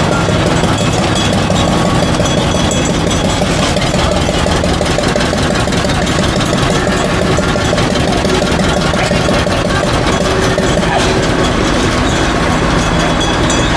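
An engine running steadily at an even level.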